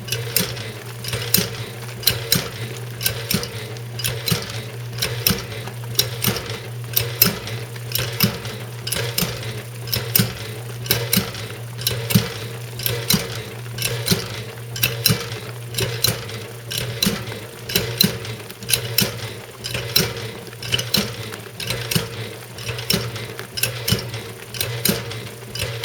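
Antique Easy washing machine (1912 patent) running: a steady motor hum under a clicking, clanking mechanism that repeats about once a second as the agitator strokes up and down, turning a little clockwise on each stroke.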